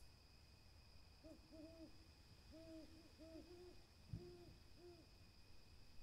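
Burrowing owl hooting softly: a run of about eight short, low hoots over a few seconds, with a brief low thump about four seconds in.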